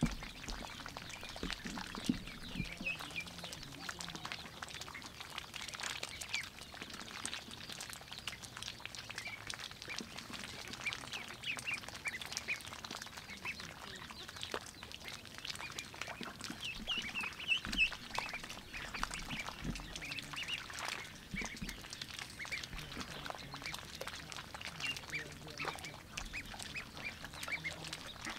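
Ducklings dabbling with their bills in muddy shallow water: a steady run of quick wet clicks and splashes, with short high calls now and then.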